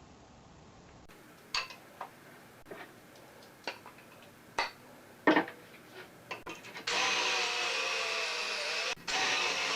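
A few scattered knocks of wood and tools being handled, then a power drill running in wood from about seven seconds in, stopping for a moment near nine seconds and starting again, its pitch wavering under load while drilling or driving deck screws into the 2x4 frame.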